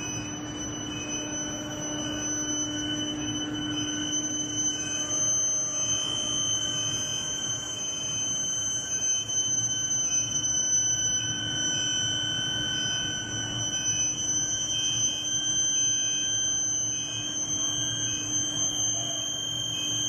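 Medium-frequency induction heating furnace running under test: a steady high-pitched whine made of several tones, with a lower hum and a constant rush of noise beneath.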